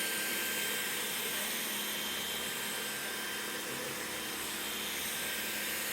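Levoit LVAC 200 cordless stick vacuum running on its highest power level, vacuuming up potting soil: a steady rushing hiss with a faint high whine.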